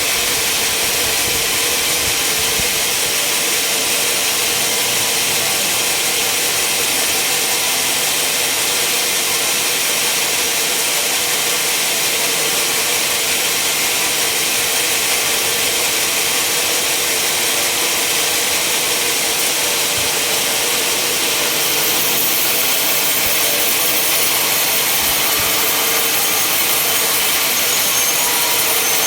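Sawmill saw running steadily through timber: a continuous hiss with a steady hum under it, unbroken throughout.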